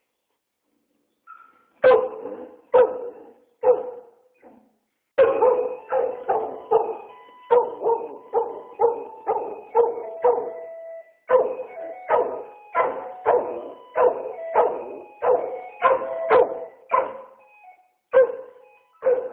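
Dog barking at the doorbell. After a short quiet, it gives three barks about a second apart, pauses, then barks in a fast run of about two barks a second with brief breaks.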